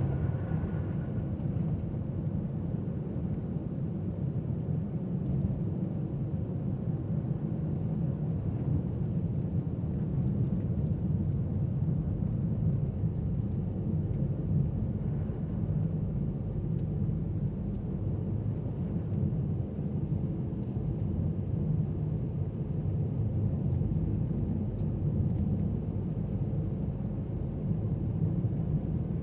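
Steady low rumble of a car driving: engine and tyres on a snowy road.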